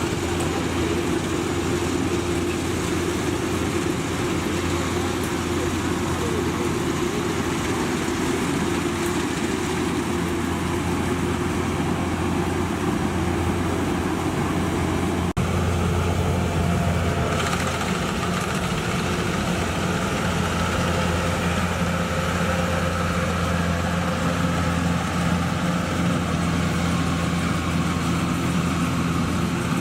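Combine harvester's diesel engine and machinery running steadily at working speed, with a sudden change in the drone about halfway through.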